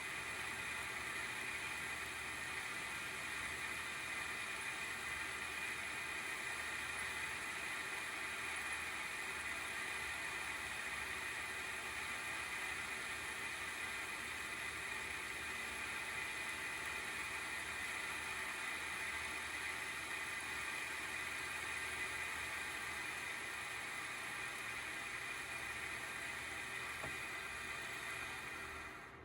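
Single cooling fan (FDC10U12D9-C) of an ASUS GeForce RTX 3060 12GB Phoenix graphics card running under benchmark load with an abnormal noise: a steady whirring hiss with a high whine over it, which drops away at the very end. The uploader attributes the noise to fan failure, either a wobbling shaft or dried-out lubrication.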